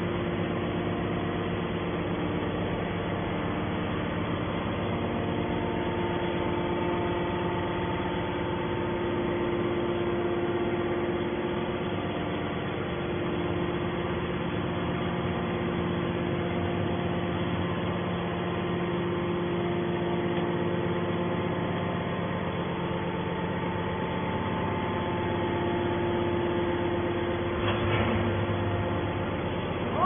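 Hydraulic power unit of a scrap metal baler running steadily: an even machine hum with several constant tones. A single knock about two seconds before the end.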